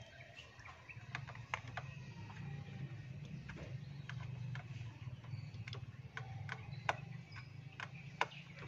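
Scattered small metallic clicks and taps from hand tools and small screws being handled at a car's ignition distributor, over a steady low hum.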